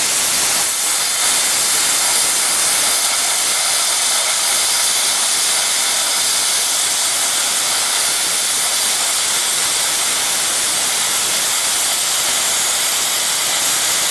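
Air plasma cutters cutting metal: a loud, steady hiss of the cutting arc and its compressed air, with no break.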